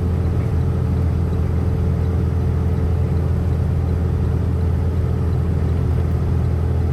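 Semi truck's diesel engine droning steadily while driving, heard from inside the cab with road noise.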